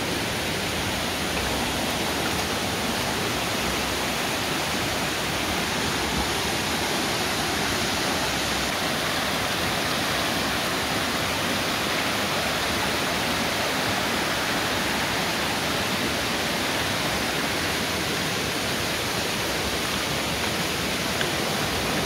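A waterfall's water rushing, an even, unbroken roar of falling water.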